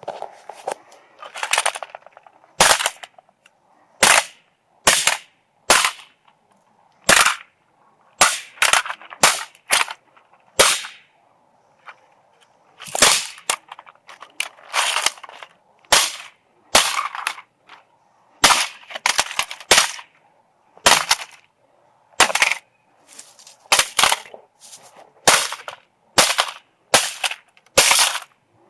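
A hammer repeatedly smashing a cheap alarm clock: sharp, loud cracking blows at irregular intervals, about one a second, some coming in quick pairs, with a short clatter after several of them.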